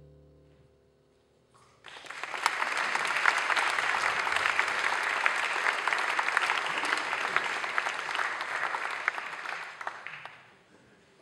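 The big band's last held chord dies away, then audience applause breaks out about two seconds in. It stays steady for about eight seconds and fades out near the end.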